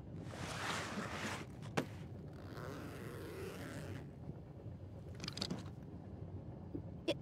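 Bag zipper pulled open in two long strokes, with a sharp click and a brief rustle as things are taken out, over the low steady rumble of a train.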